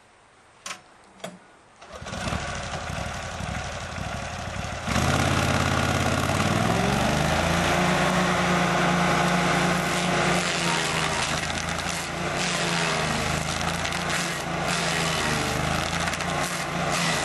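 Stump grinder's 16 hp Briggs & Stratton V-twin engine. It comes in about two seconds in, then about five seconds in it rises in pitch and level up to speed and runs steadily at high speed.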